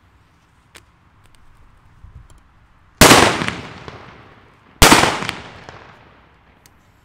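Two Hua Liang flash-powder firecrackers exploding: two sharp bangs less than two seconds apart, each echoing away over a second or so.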